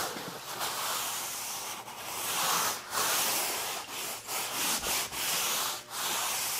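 A cloth rag wiped in long strokes over the camper's painted aluminium composite side panel: a rubbing hiss that rises and falls with each stroke, about once a second.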